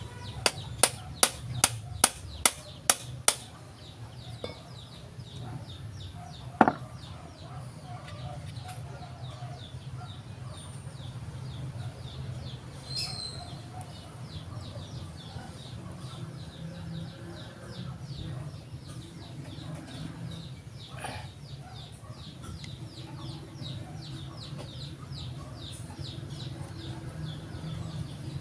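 A quick run of eight sharp, evenly spaced knocks, then a single louder knock with a short ring a few seconds later, over a steady low hum.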